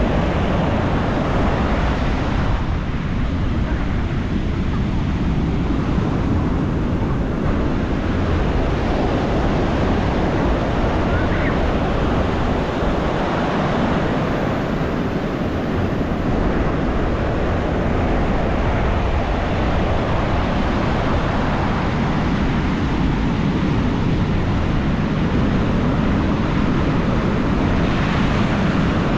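Large ocean waves breaking and rushing on a beach in a continuous loud surge, with wind buffeting the microphone.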